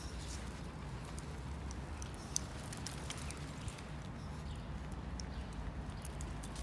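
Walking on asphalt with two small Yorkshire terriers on leashes: light, irregular clicks and patter from paws, shoes and leash fittings over a low rumble.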